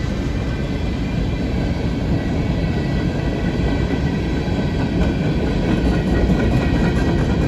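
A train rolling past, its wheels on the rails making a steady rumble.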